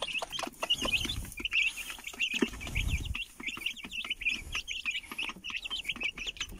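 A brood of young chicks peeping without pause, many short high peeps overlapping each second, with scattered clicks and rustling in the straw bedding.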